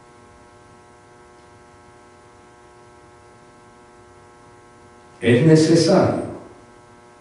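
Steady electrical mains hum from the sound system, a stack of even tones. About five seconds in, a short burst of a voice, lasting about a second, is the loudest thing.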